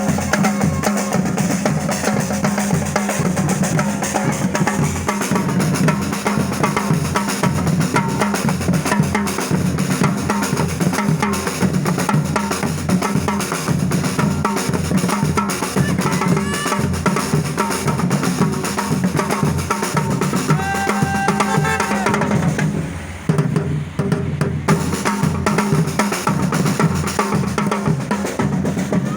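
Music with a steady drum-kit beat and dense percussion, briefly dropping away about 23 seconds in.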